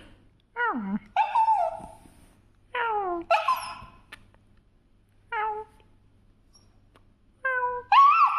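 Dog giving a string of about seven short, high-pitched whining calls, most of them falling in pitch, with pauses between them.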